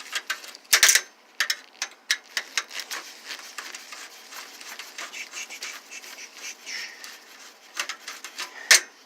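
Irregular clicks, clinks and knocks of metal hand tools and small brass bolts being worked out of a plasma TV's chassis, with a louder knock about a second in and another near the end.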